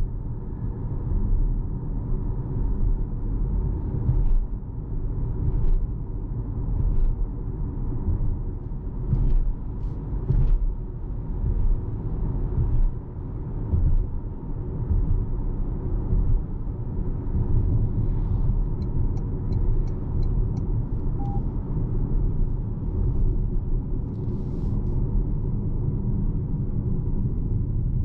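Steady low rumble of road and tyre noise inside the cabin of a 2026 Toyota RAV4 2.5 L hybrid being driven, with a few faint clicks and a short run of high ticks about 19 seconds in.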